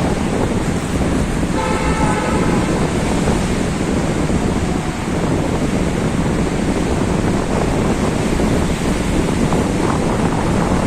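Wind buffeting the microphone over the steady wash of sea waves. A horn sounds once for about a second, around two seconds in.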